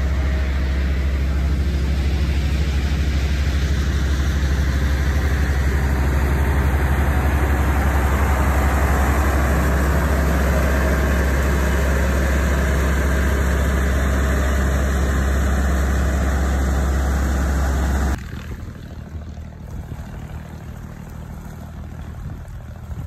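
Engine of a moored river dredge barge running steadily: a loud, deep, even drone. About 18 seconds in it cuts off abruptly, leaving much quieter wind and water.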